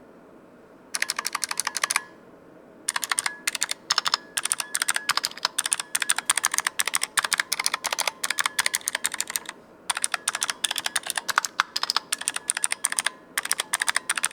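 Fast typing on a Razer Huntsman Mini keyboard with purple clicky optical switches, each keystroke a sharp click. It comes in several bursts of rapid strokes, with short pauses about a second in, near two seconds in, a little before ten seconds and near the end.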